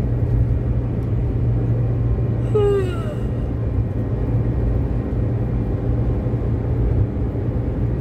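Steady low rumble of road and engine noise heard inside a car cruising at highway speed. A short tone with a slightly falling pitch sounds briefly about two and a half seconds in.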